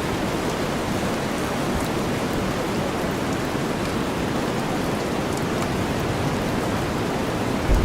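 Steady rain mixed with a deep white-noise bed, an even hiss with faint raindrop ticks. A low rumble comes in near the end.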